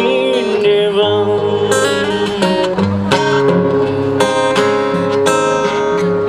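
Acoustic guitar music, strummed and picked in a steady rhythm.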